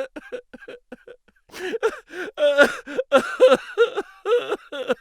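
A person making a quick string of short, odd vocal noises, like grunts and chattering, with no recognisable words. They come sparsely at first and more densely from about a second and a half in.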